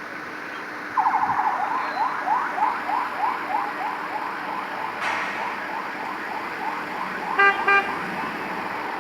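Police siren in a fast yelp: rising sweeps repeating about three times a second, starting suddenly about a second in and fading after a few seconds. Two short car-horn toots follow near the end over traffic noise.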